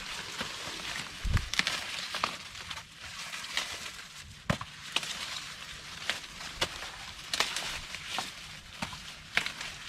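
Dry corn plants being harvested by hand: leaves and husks rustling, with irregular sharp snaps and cracks.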